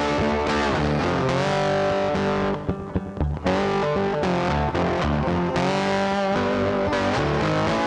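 Instrumental music led by guitar, which briefly drops out about three seconds in.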